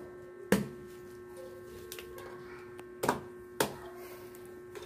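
Hard plastic knocks as plastic legs are pushed into the corners of a plastic rack basket: one about half a second in, then two close together around three seconds in, over a steady hum.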